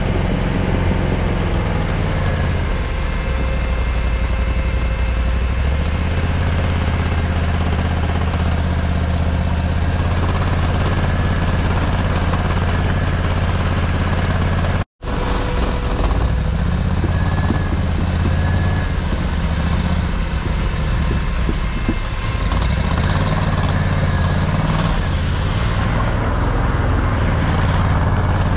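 Argo Aurora 8x8 amphibious ATV's engine running steadily as the half-tracked machine drives, its pitch shifting a little with the revs. The sound cuts out completely for an instant about halfway through.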